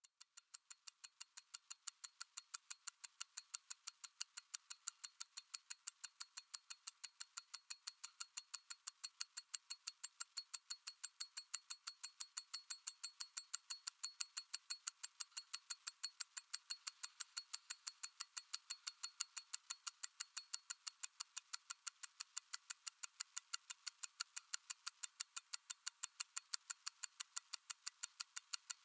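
Mechanical watch ticking quickly and evenly, about five light ticks a second.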